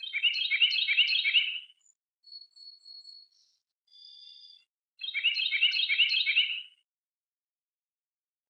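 Songbird singing: two rapid, trilled song phrases, each about a second and a half long and about four seconds apart, with a few thin, high whistled notes in between.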